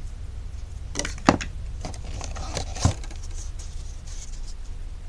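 Plastic GoPro accessories being handled and set down: a handful of sharp clicks and taps, the two loudest about a second in and just before three seconds in, over a low steady hum.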